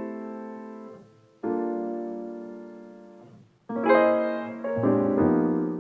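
Slow piano music: two sustained chords, each struck and left to fade away, then a run of quicker chord changes with a low bass note coming in near the end.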